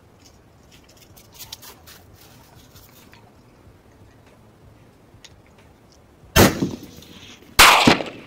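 Rifle fire: two loud, sharp reports about a second apart near the end, each with a short ringing tail, after a few faint clicks earlier on.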